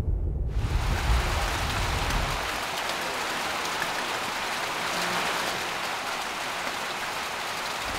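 Steady rain pouring down on a garden, lawn and wet paving, a continuous even hiss that starts about half a second in. A low rumble sits underneath for the first two seconds or so, then fades.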